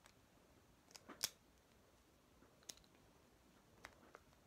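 A few faint, sharp plastic clicks, about five spread out, as the parts of a Beyblade spinning top are twisted and locked together.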